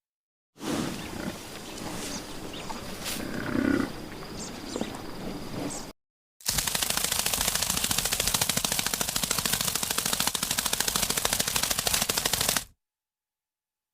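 A rapid, even rattle that lasts about six seconds, preceded by a few seconds of mixed, uneven noise with one louder low swell.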